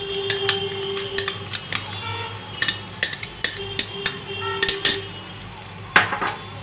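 A spoon clinking and tapping again and again against a bowl and the pan as yogurt is scraped out into a nonstick pan of fried masala, with a brief scraping rattle near the end.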